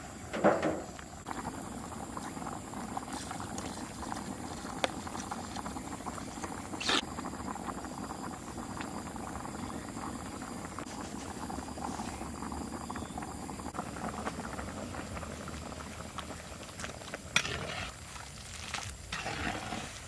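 A pot of liquid boiling, a steady bubbling. A knock comes about half a second in, and a sharp click and some louder handling noises come near the end.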